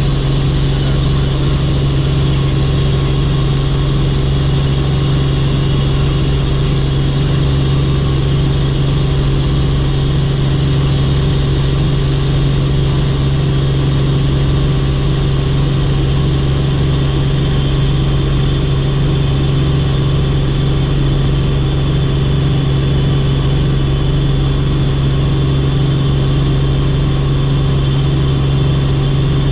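Helicopter in flight, its rotor and engine running steadily: a loud, even drone with a strong low hum and a fainter high whine.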